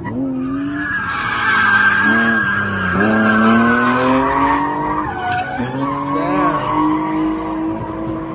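A car drifting: its engine revving hard, the pitch climbing and dropping briefly a few times, over loud tire squeal that is strongest in the first half.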